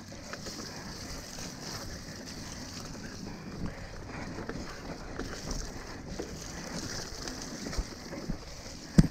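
A mountain bike ridden over wet, muddy forest trail: a steady rush of tyre noise, frame and drivetrain rattle and wind on the microphone, with scattered knocks and a hard thump near the end as the bike hits a bump.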